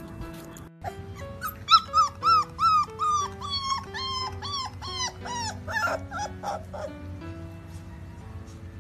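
A pit bull puppy giving a quick run of short, high yipping calls, about three a second, dropping gradually in pitch and fading out near the end, over background music.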